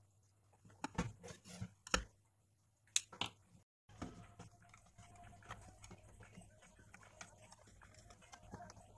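A handful of sharp knocks and clicks, like a plastic radio case being handled and put back together. After an abrupt cut comes a faint steady hiss with light crackling.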